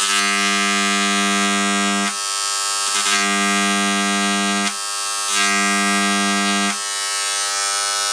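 Dremel Engraver, an electric impact-type engraving pen, buzzing loudly as its tip hammers into a metal plate. A deeper hum in the buzz comes and goes three times, and the buzz stops abruptly at the very end.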